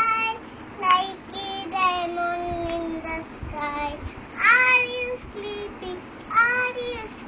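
A small girl singing a children's rhyme, in short phrases with one long held note about two seconds in.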